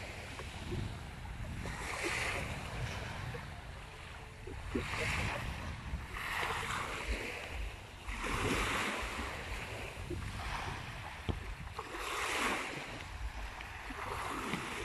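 Small sea waves breaking and washing up a sandy shore, a new wash swelling and fading every two to three seconds, over a low rumble of wind on the microphone.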